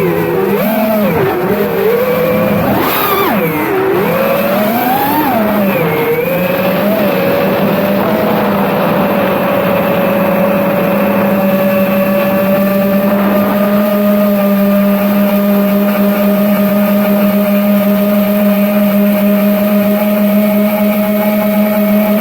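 FPV quadcopter motors whining, their pitch rising and falling with the throttle for the first several seconds, then holding a steady tone.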